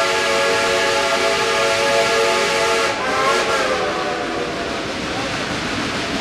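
Geared steam locomotive's whistle blowing a long, steady chord that wavers and cuts off about three seconds in. After it, steam hissing and the noise of the running train.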